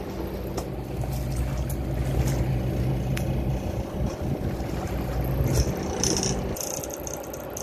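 Boat engine running with a steady low hum, easing off near the end.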